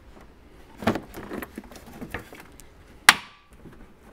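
Plastic knocks and wire rustling as a Morimoto XB LED headlight housing is pressed into a Toyota Tundra's front end, with a sharp snap about three seconds in as the housing seats.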